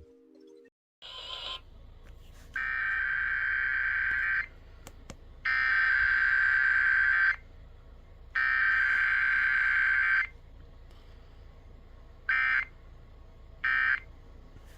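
Emergency Alert System SAME digital header: three harsh, buzzing data bursts, each about two seconds long and a second apart. Near the end come shorter end-of-message bursts about a second apart, with no attention tone or spoken message between, as in a Required Weekly Test.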